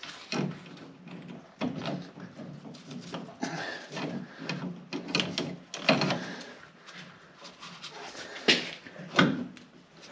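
Irregular clunks and knocks of heavy metal tractor hydraulic parts and bolts being handled and fitted, with a few sharp bangs toward the second half.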